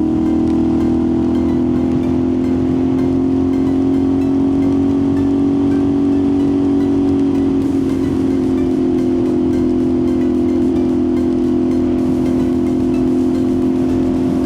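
CFMOTO 450SS parallel-twin engine running at a steady cruising speed: a constant drone that holds nearly the same pitch throughout, over wind and road noise.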